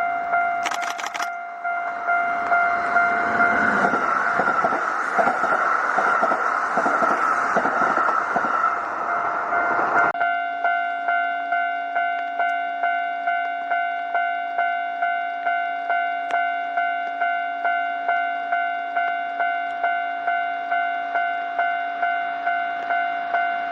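Railway level-crossing warning bell ringing in steady repeated electronic dings, about two a second, while a Kintetsu train passes over the crossing with a rushing rumble for the first ten seconds or so. The train noise cuts off suddenly, and the crossing bell rings on alone.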